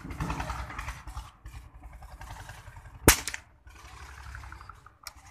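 .22 rifle firing a single shot about three seconds in: one sharp crack with a brief tail. A faint click follows near the end.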